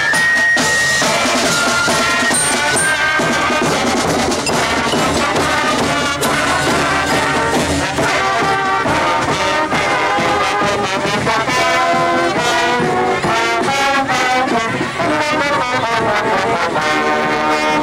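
High school marching band playing on the field, the brass section (trombones and trumpets) carrying the tune in long held notes.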